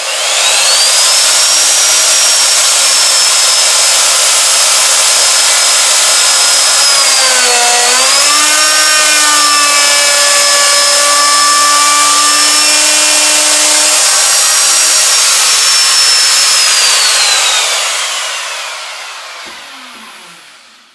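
Handheld electric router spinning up to a loud, steady high whine, its pitch dropping briefly about eight seconds in as the bit bites into the melamine board, then switched off and winding down with a falling whine that fades out near the end.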